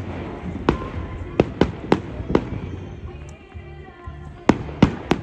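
Aerial firework shells bursting: about eight sharp bangs, a quick run of them in the first half, a pause, then three more near the end, with music playing underneath.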